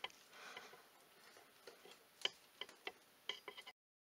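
A handful of faint, sharp metallic ticks and taps from the ATV's rear axle sprocket and drive chain being worked with a mallet, mostly in the second half, after the heavy hammer blows have stopped. The sound cuts off abruptly shortly before the end.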